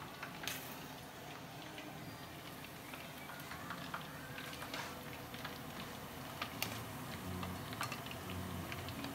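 Hot frying oil sizzling steadily in a pot as deep-fried chicken wings are lifted out with a wire skimmer and wooden chopsticks, with scattered sharp clicks.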